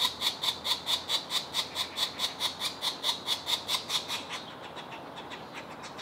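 Green woodpecker nestlings in the nest hole begging for food: a rapid, even chatter of sharp high notes, about six or seven a second. It fades and stops about four and a half seconds in.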